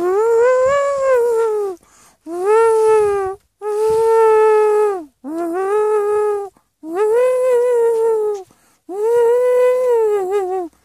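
A high wailing voice, repeated six times in long drawn-out calls of a second or so each, the pitch arching up and down and wavering near the end. This is the noise the hens shake their heads at.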